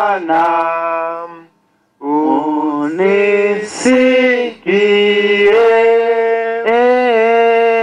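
A man singing solo into a microphone in long, drawn-out notes, phrase after phrase, with a brief break for breath about a second and a half in.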